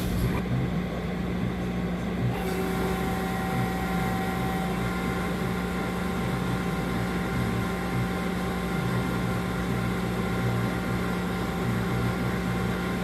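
Haas ST-35Y CNC lathe running a machining cycle: a steady machine hum with a brief click at the start. A set of steady motor whine tones comes in about two seconds in and holds.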